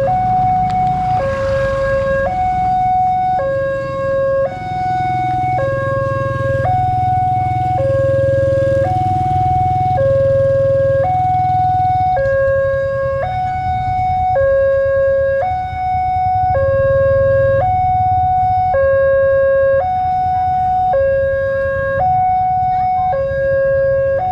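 Railway level-crossing warning alarm sounding from the crossing's horn loudspeaker. It is a steady two-tone high-low alternation, each tone held about a second, and it signals that a train is approaching and the barriers are closed. A low rumble runs underneath.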